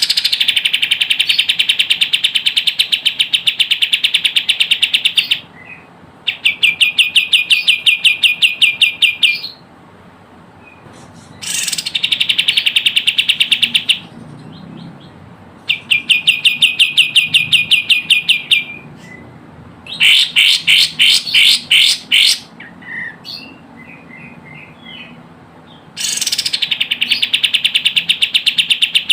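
Kapas tembak (a bulbul) singing, as a lure call: bouts of rapid, evenly spaced chirps, about eight to ten a second, each bout lasting a few seconds with short pauses between.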